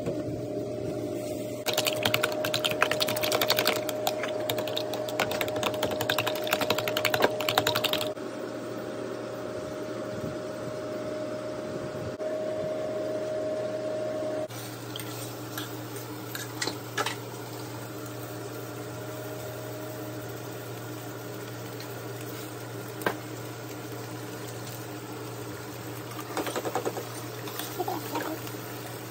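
Raw eggs and milk being beaten in a plastic container: a fast, dense clatter that lasts several seconds, over a steady hum. Later it is quieter, with a few single clicks and a utensil scraping in a pan near the end.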